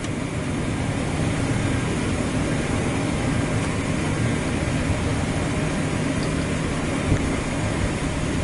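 Steady rumble and hiss inside the cockpit of a Boeing 737-800 taxiing, its CFM56 engines at idle, with a single light thump about seven seconds in.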